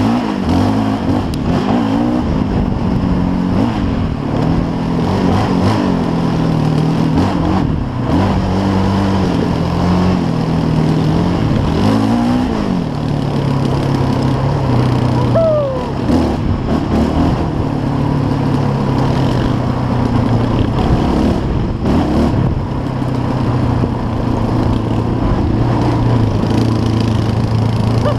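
The 570 ATV's engine running under throttle along a gravel trail. Its pitch holds steady for stretches and shifts up and down, with a quick rev about twelve seconds in. Tyre crunch and wind noise run underneath.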